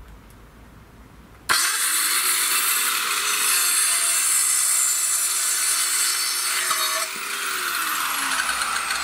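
Portable electric circular saw starts suddenly about one and a half seconds in and cuts through a wooden board. The sound drops a little near seven seconds as the blade clears the wood, and the saw runs on with a falling tone.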